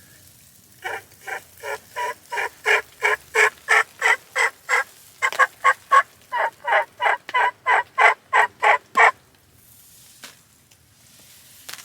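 Turkey yelping: a long run of loud, evenly spaced yelps, about three a second, with a short break about halfway through.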